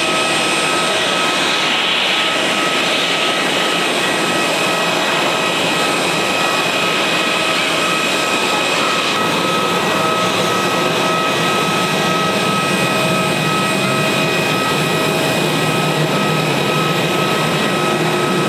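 Airbus A321-211's CFM56-5B turbofan engines running at low taxi power: a steady jet whine with several fixed high tones over an even rush of engine noise.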